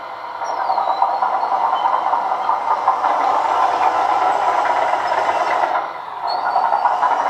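1:14 scale RC hydraulic excavator driving on its rubber tracks: a steady, rough mechanical clatter mixed with its onboard sound module's simulated engine, easing briefly about six seconds in.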